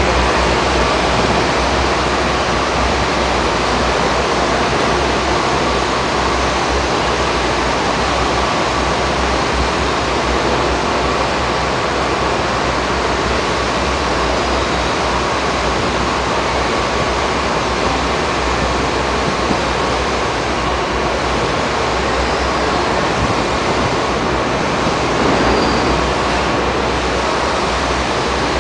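Montreal Metro rubber-tyred train in the station: a loud, even rushing noise over a low rumble, with a faint steady hum.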